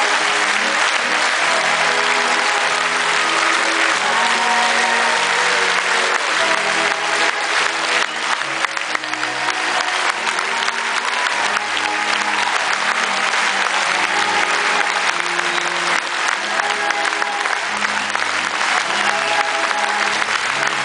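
Concert audience applauding and clapping over a live band playing an instrumental passage with a stepping bass line and held keyboard notes, picked up from within the crowd.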